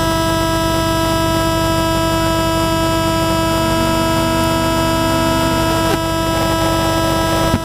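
Drone motors and propellers buzzing steadily: a dense, unchanging whine of many tones at once.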